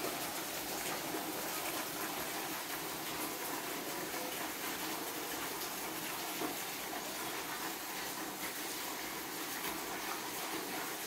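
Rain falling steadily, an even hiss of water with faint patter of drops.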